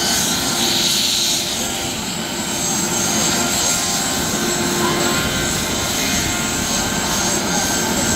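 Police helicopter running steadily, its rotor noise under a high, steady turbine whine.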